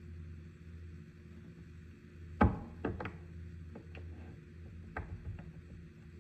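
A scattered series of sharp clicks and knocks, the loudest about two and a half seconds in and a few lighter ones after it, over a steady low hum.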